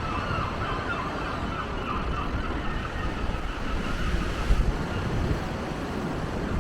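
Strong wind buffeting the camera's built-in microphone, a steady low rumble over a wash of surf and traffic. A faint wavering tone sits above the noise and fades out about two-thirds of the way through.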